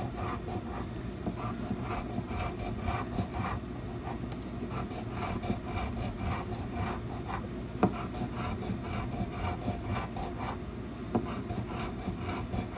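A scratch-off lottery ticket being scratched with the edge of a large coin-like token: a continuous run of quick rasping strokes over the ticket's coating. One sharp tap about eight seconds in.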